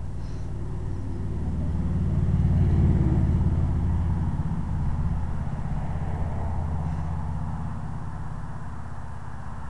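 Low rumble of a passing vehicle, swelling to its loudest about three seconds in and then slowly fading.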